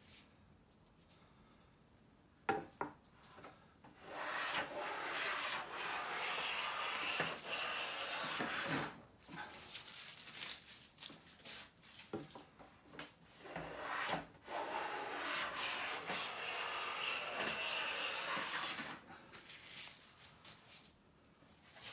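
Siegley StS #7 jointer-size bench plane cutting long shavings off a straight-grained pine board: two long, steady cutting strokes of about five seconds each, with shorter strokes between. A single knock comes a couple of seconds in.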